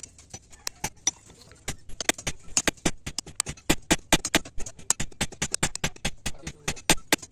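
Hand hammer striking a hot billhook (aruval) blade on a small steel anvil, forging the blade: a few scattered blows, then from about two seconds in a fast, even run of sharp metal-on-metal strikes, about five a second.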